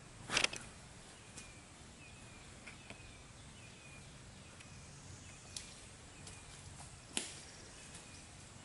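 Quiet woodland sound: footsteps on leaf litter snapping dry twigs, with sharp cracks about half a second in and again near the end. Under it, a bird repeats a faint short downslurred chirp about once a second.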